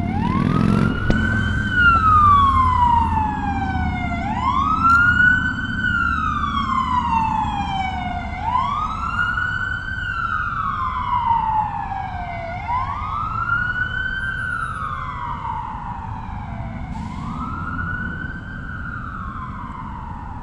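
Emergency vehicle siren wailing, climbing quickly and sliding slowly back down about every four seconds, five times, over a low traffic rumble. It grows slightly fainter as it goes.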